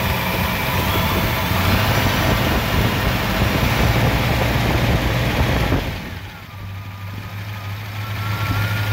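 Supercharged Studebaker Golden Hawk 289 V8 held at raised revs with its belt-driven supercharger spun up, then dropping back to idle about six seconds in. As it settles, a faint whine comes back and rises slightly in pitch near the end: a noise the owner can't place and guesses is normal bearing sound.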